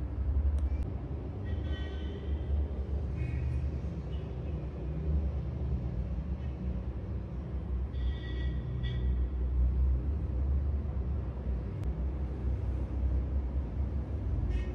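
A steady low rumble, with brief faint higher tones about two and eight seconds in.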